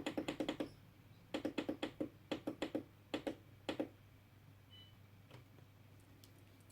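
Quick runs of small plastic button clicks, as the temperature-up button on a soldering station is pressed repeatedly to raise the iron's heat, followed by a couple of single clicks. A short faint beep about five seconds in.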